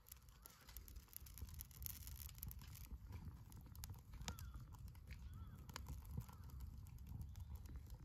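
Small fire of dry leaves, grass and twigs crackling in a metal fire pit, with irregular sharp ticks and pops over a low rumble of wind.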